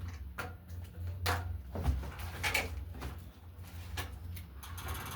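A new microwave's cardboard box and packaging being handled and opened: a string of scrapes, rustles and knocks.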